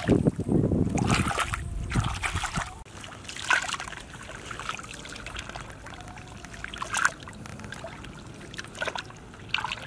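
Hands splashing and squelching in shallow muddy water while digging into the soft mud bottom, with scattered small splashes and drips. It is louder and heavier for the first three seconds or so, then quieter.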